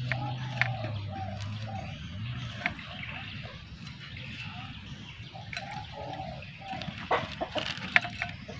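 Chickens clucking in short runs of calls, with a low steady hum that fades out about two seconds in and several sharp clicks, the loudest near the end.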